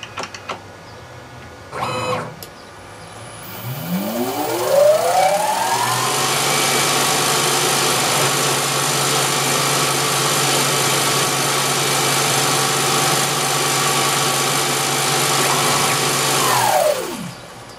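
CNC mini lathe spindle motor spinning up over about two seconds with a rising whine, running steadily at speed, then winding down quickly near the end. A brief mechanical sound comes about two seconds in, before the spin-up.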